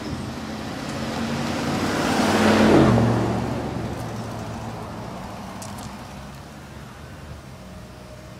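A vehicle passing by on the street. Its engine and tyre noise swells to a peak a little under three seconds in, drops in pitch as it goes past, then fades away.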